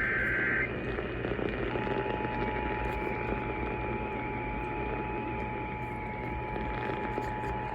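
The last of the Emergency Alert System's SAME digital header bursts, a buzzy warbling data tone, ends just under a second in. After a moment of radio hiss, the EAS two-tone attention signal (853 and 960 Hz) starts at about two seconds and holds steady over the static.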